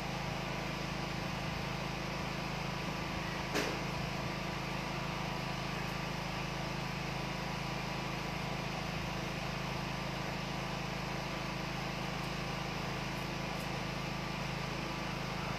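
Steady background hiss with a constant low hum, and a single sharp click about three and a half seconds in.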